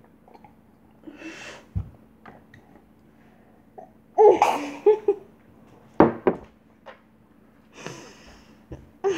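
Short bursts of giggling laughter and breathy gasps from a girl chugging a glass of water, the loudest burst about four seconds in. Two sharp knocks come about six seconds in.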